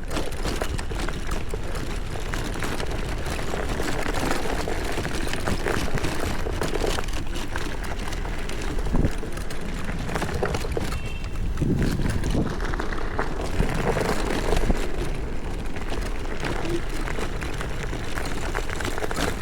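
Electric scooter ridden over rough off-road ground: a steady rush of wind noise on the chest-mounted microphone with tyre noise and scattered knocks and rattles from bumps.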